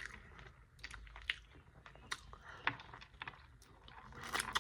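Close-up chewing and biting of chicken wings: wet smacking and sharp crunching clicks at an uneven pace, with a burst of louder crunches near the end.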